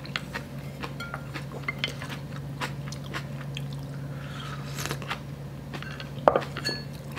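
Close-up eating sounds of a person eating cold noodle soup: small chewing and mouth clicks, and about four seconds in a soft slurp of broth drunk straight from the bowl. A little after six seconds there is a single sharp knock, as the wooden spoon goes back into the ceramic bowl.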